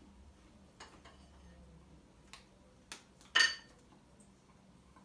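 Small clicks and taps of things handled on a glass tabletop, with one sharper, louder clink about three and a half seconds in.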